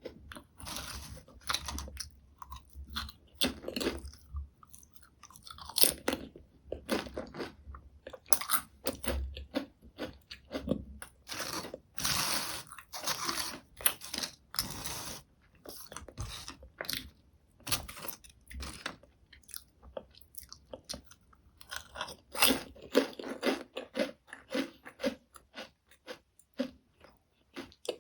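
Close-miked crunching and chewing of thin, crisp potato chips: sharp irregular crackles as the chips are bitten and broken down, with a denser run of crunching about halfway through.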